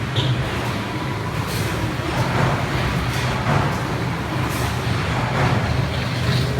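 Solar water heater foaming machine running: a steady low hum under a constant hiss, with a few short spurts of high hiss about a second and a half apart.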